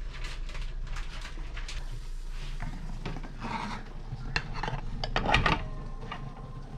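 Kitchen clatter: pots, pans and utensils knocking, clinking and scraping, with the loudest burst of clinks about five seconds in.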